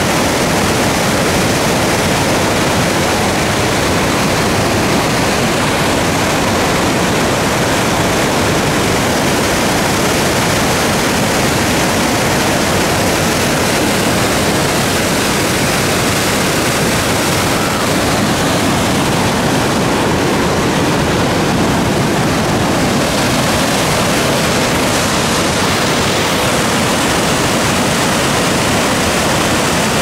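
Fast white water of the Merced River rushing through rapids at the drop-off above Nevada Fall: a loud, steady rush with no breaks.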